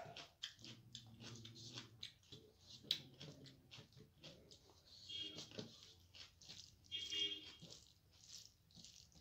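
Fingers mashing and mixing soft, starchy rice on a metal plate: faint wet squishing with many small clicks, along with chewing. Two short whine-like tones sound about five and seven seconds in.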